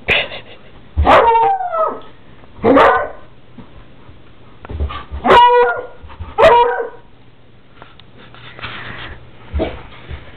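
Dog barking: about five loud, drawn-out barks a second or two apart, some falling in pitch, then a fainter one near the end.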